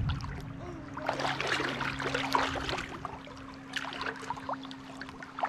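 Creek water splashing and sloshing irregularly, with scattered knocks, over a steady low hum.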